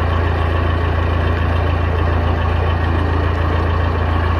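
Narrowboat's diesel engine running steadily, a low, even hum.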